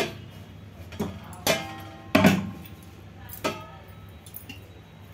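Stainless steel pot being handled off a gas stove burner: several metallic clanks that ring briefly, the loudest about two seconds in.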